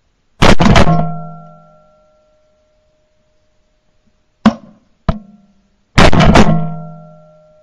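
Two shotgun shots about five and a half seconds apart, each a sharp blast that rings on for a second or so through the gun-mounted camera. Two short, sharp clicks fall between them.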